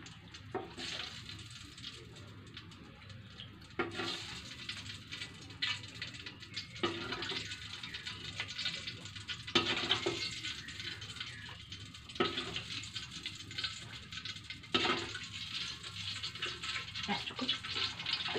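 Metal ladle scraping and knocking against a stainless-steel wok as excess cooking oil is scooped out and poured off. There are sharp clinks every two to three seconds over a soft liquid hiss.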